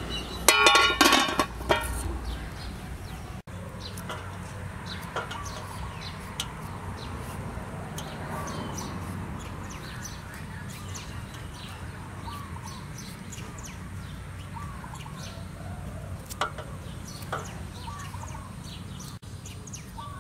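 A metal pot lid clatters and rings as it is set on an aluminium pot, about half a second in, and is the loudest sound. After it, chickens cluck and chirp in the background, with occasional light clicks of a knife as a vegetable is pared.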